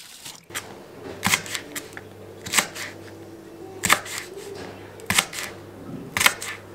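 Knife chopping green beans on a plastic cutting board: five sharp chops, about one every second and a quarter, each blade stroke slicing through a few beans and hitting the board.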